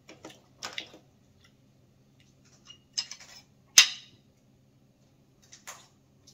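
Cooked crab shell being cracked and picked apart by hand: a scatter of short, sharp cracks and clicks, with a cluster about three seconds in and the loudest crack just before four seconds.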